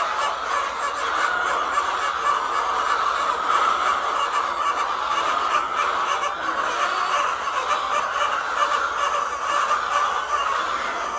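A large flock of laying hens clucking and calling all at once in a dense, continuous chorus.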